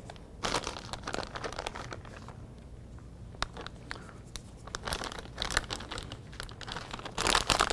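Plastic bag of shredded cheese crinkling as it is handled and shaken over tortillas: irregular crackles, thickest about half a second in and again near the end.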